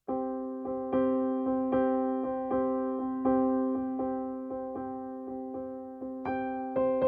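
Intro music: a gentle electric piano melody, notes struck one after another about two a second and dying away, with a higher line coming in near the end.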